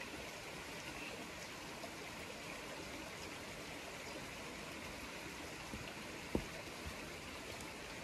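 Faint, steady rushing outdoor ambience with no clear single source, and one soft knock about six seconds in.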